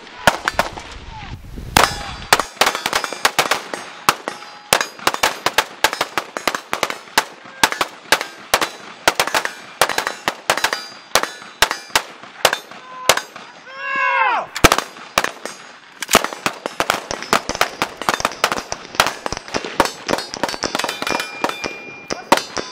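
Rifle fire from several shooters: rapid, irregular single shots and short strings, often several a second and overlapping. There is a short lull near the start. About fourteen seconds in, one drawn-out shout rises and falls, followed by a brief gap before the firing resumes.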